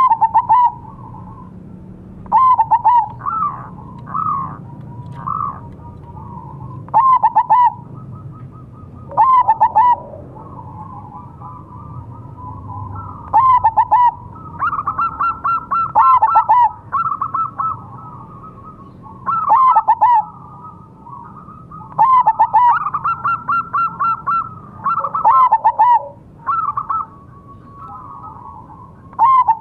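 Zebra dove (perkutut) singing: its rapid, stuttering coo phrase repeated about every two to three seconds, with some longer held notes between phrases.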